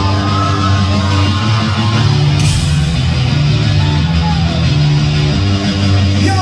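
Live heavy rock band playing loudly, with guitars and drums and sustained low notes.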